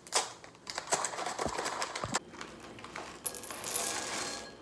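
Foil snack packet crinkling as it is handled and torn open, then dry corn snack pieces pouring out and rattling into a ceramic bowl about three seconds in.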